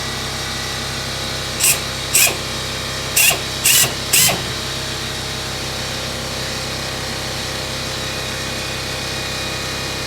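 A power drill run in five short bursts, one after another over about three seconds, against a steady machine hum.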